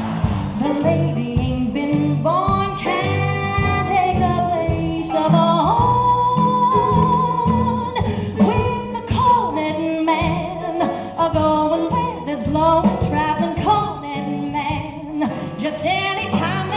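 A woman singing a show tune live over instrumental accompaniment, her long held notes wavering with vibrato above steady low chords.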